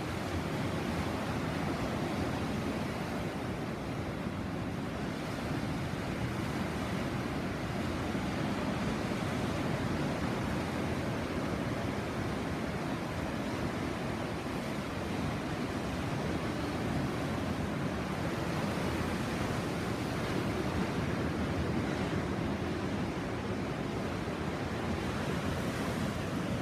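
Sea waves washing onto the shore, a continuous surf wash that swells and eases slowly, with some wind buffeting the microphone.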